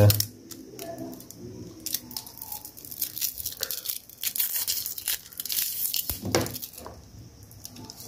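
Crinkling and crackling of aluminium foil shielding and plastic film being unwrapped and peeled off the twisted pairs of a shielded Cat7 ethernet cable, in irregular quick crackles.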